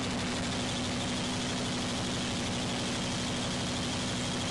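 Fishing trawler's engine running steadily at a constant pitch, a low even drone over a haze of sea and wind noise.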